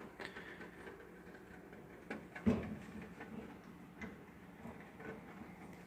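Faint scattered clicks and knocks, with one louder knock about two and a half seconds in, over a low steady hum.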